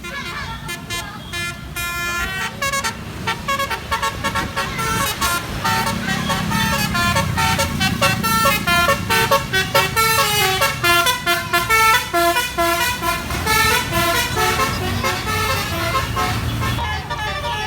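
A bus's Basuri 'telolet' musical horn playing a quick melody of stepped notes, over the low rumble of the bus's engine, which grows louder from about six seconds in.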